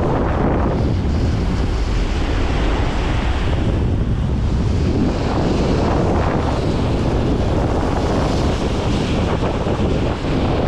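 Wind buffeting the microphone in a steady low rumble, over the wash of sea waves that swells and eases.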